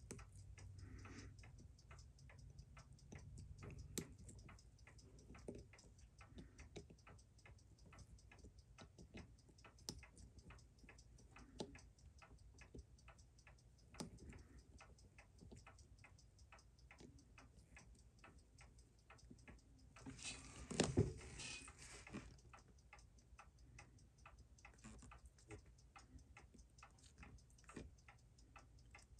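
Mechanical watch movement ticking steadily and fast, about six beats a second. A few louder clicks from small tools touch the movement, and there is a brief louder scrape of handling about two-thirds of the way through.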